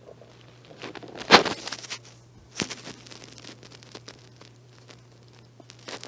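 Stomach gurgling from an empty stomach: a few crackling, popping gurgles, the loudest about a second and a quarter in, with smaller ones at about two and a half seconds and again near the end.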